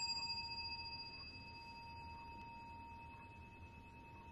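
Small brass rin (Japanese Buddhist bowl bell) ringing just after a strike: a clear, steady tone with several overtones, slowly fading. The highest overtone dies away about three seconds in while the lower tones ring on.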